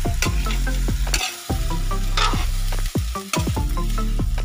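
A metal ladle scraping and knocking against a wok as chunks of pork are stirred over a wood fire, the meat sizzling as it fries in its own juices. This is the stage where the pork's juices are cooked off before broth goes in.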